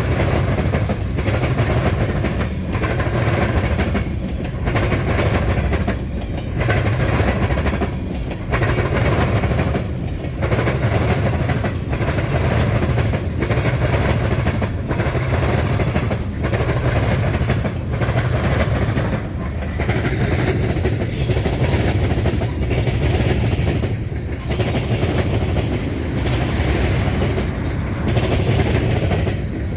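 Freight cars of a Union Pacific train rolling over a railroad diamond crossing, the steel wheels clacking steadily over the crossing joints. The clatter rises and falls every couple of seconds as the cars go by.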